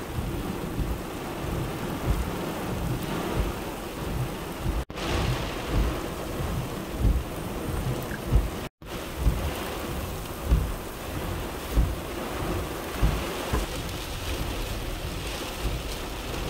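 Heavy rain falling steadily, a continuous hiss, with frequent short low rumbles and thumps throughout. The sound cuts out briefly twice, a little before and a little after the middle.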